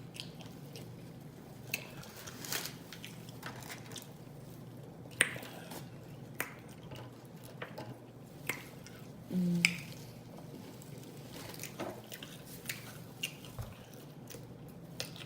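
A person chewing and biting fast food, with irregular wet mouth clicks and smacks. A brief low vocal sound comes about nine seconds in.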